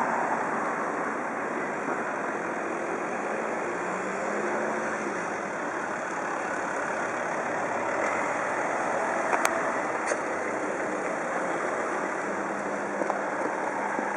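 Steady street traffic noise with vehicle engines running and idling, and a faint engine hum that comes and goes. Two sharp clicks sound a little after halfway.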